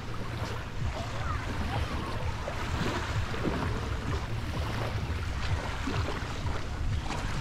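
Beach ambience: sea waves washing in and wind buffeting the camera microphone, a steady low rumble, with faint distant voices.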